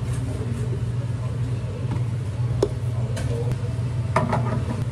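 Steady low hum of cafe counter machinery, with a few light clicks and knocks, one about halfway through and a cluster near the end.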